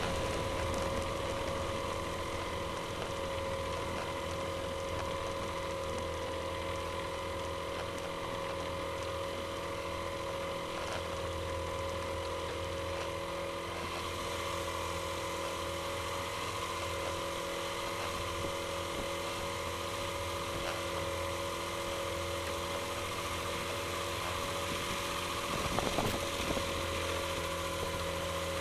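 Avid light aircraft's engine and propeller running at low power while taxiing, a steady drone with a steady whine over it. A brief knock comes near the end.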